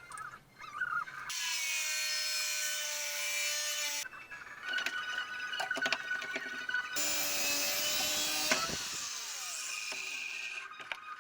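Steel square tubing being cut, in short clips that cut in and out abruptly every few seconds: hissing sawing noise with a steady whine, and in one clip a run of repeated strokes.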